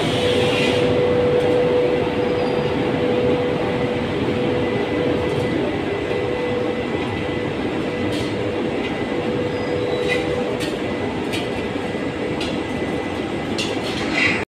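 Steady mechanical din of an automatic powder coating line running, its overhead conveyor and machinery going, with a held hum throughout and a few light clicks in the second half.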